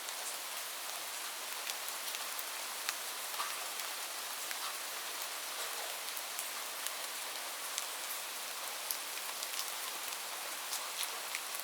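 Steady rain falling: an even hiss with many sharp single drops ticking at irregular moments.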